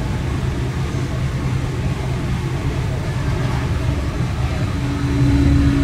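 S-Bahn commuter train running at speed, heard from inside the passenger car: a steady low rumble with a constant hum. A higher steady hum joins near the end as the noise grows slightly louder.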